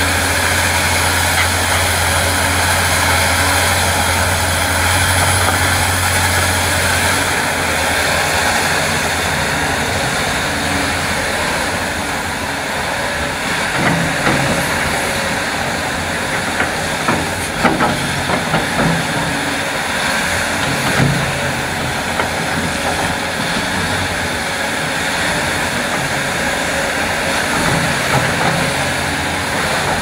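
Diesel engine of a large Hitachi hydraulic excavator running steadily under load as it digs. From about halfway through, short clanks and knocks of the steel bucket scraping through stony soil come in over the engine.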